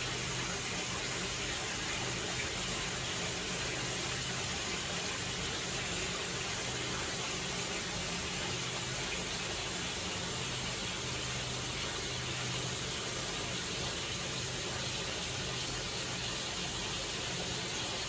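Water running steadily into a bathtub as it fills, an even rushing and splashing that does not change, over a faint low hum.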